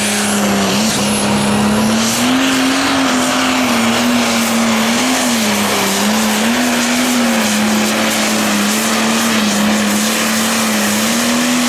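International 1066 Light Pro Stock pulling tractor's turbocharged diesel engine held at full throttle while pulling the weight-transfer sled. It is a loud, steady drone that wavers slightly in pitch, with a high whistle that rises during the first second and then holds over it.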